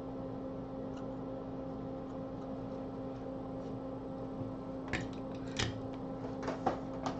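Fume extractor fan running with a steady hum, and a handful of small sharp clicks from hand tools near the end.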